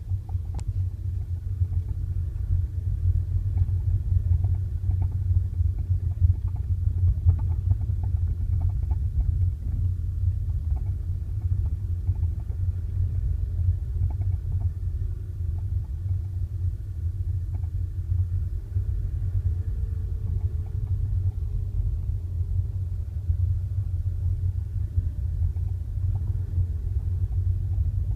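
Volkswagen Tiguan driving, with a steady low rumble and faint short knocks scattered through it, most of them in the first half. The knocks are the knock at the car's front left that the owner is chasing.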